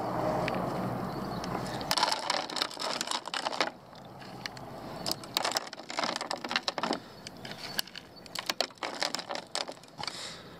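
Handfuls of carp pellets and sweetcorn dropped into the plastic hopper of a bait boat. The small hard pellets rattle and patter onto the plastic in about three clusters of rapid clicks.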